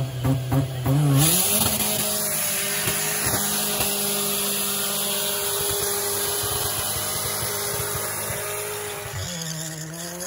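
Car burnout: a few quick blips of the throttle, then about a second in the engine rises and holds at high revs for some eight seconds while the drive tyres spin in place with a steady hiss. Near the end the revs drop as the car comes out of the burnout.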